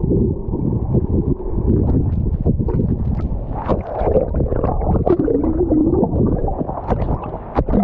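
Heavy, muffled rumble of churning waterfall water heard underwater, with scattered bubble clicks and pops.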